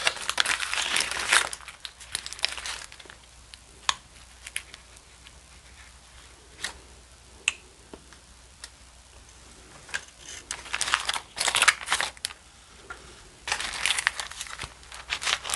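Close-miked eating sounds: crinkling of aluminium foil around a gyro in short bursts near the start and again late on, with scattered clicks of chewing between quieter stretches.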